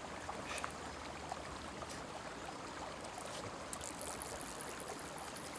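Faint, steady rush of wind-ruffled river water and wind, with a few soft ticks.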